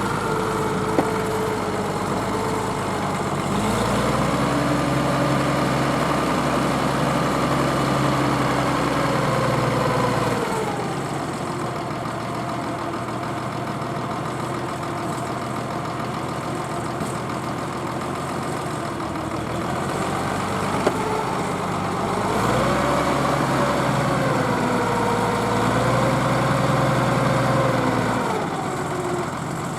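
Zetor Crystal 12145 tractor's six-cylinder diesel engine running. Its revs rise and it grows louder about four seconds in, drop back about ten seconds in, then rise again about 22 seconds in and drop near the end.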